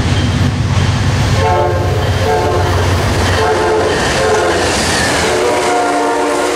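Amtrak GE P42DC diesel locomotive passing close by and sounding its horn in three blasts, the last still going at the end. Under the horn, the locomotive's deep engine rumble fades as it goes by about four seconds in, leaving the passenger cars clattering past.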